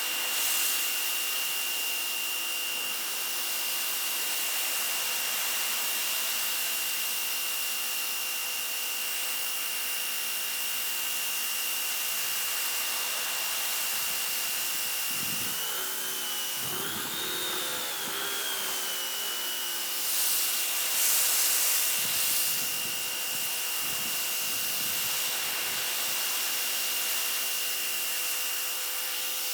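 Sun Joe SPX3000-QW2 electric pressure washer running and spraying: a steady high whine from its 14.9-amp motor and pump over a continuous spray hiss. About halfway through, the whine rises briefly, and a few seconds later the spray hiss swells louder.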